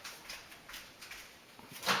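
A few faint clicks and handling noises, then a short, louder clack near the end as the microwave door is shut on the butter.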